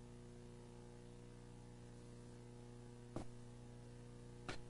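Near silence: a steady electrical hum, with two faint brief taps about three and four and a half seconds in.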